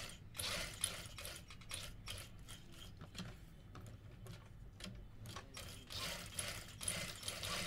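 Sewing machine stitching along the edge of a fabric collar band, a steady motor hum under the needle's clatter, in uneven runs that are louder near the start and again toward the end.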